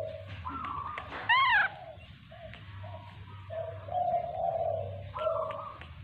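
Repeated low cooing calls, each held about a second, with one short, high call that rises and falls about a second and a half in.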